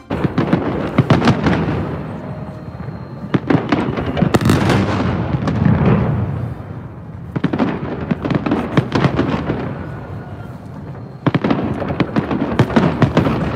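Fireworks display: volleys of aerial shells bursting in rapid, dense bangs and crackles. They come in about four waves of two to three seconds each, with short lulls between.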